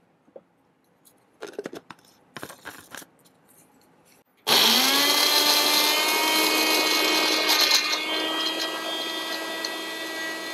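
A few light knocks, then an Indian mixer-grinder (mixie) motor switches on about halfway through. It spins up in a quick rising whine and settles into a steady high whine, wet-grinding leafy herbs, coconut and ginger with whey water. It grows slowly quieter as it runs.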